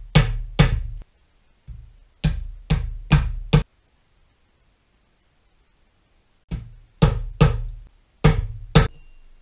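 About a dozen dull mallet blows in quick runs of two to four, tapping the studs of a rebuilt BMW E39 driveshaft CV joint into its flange.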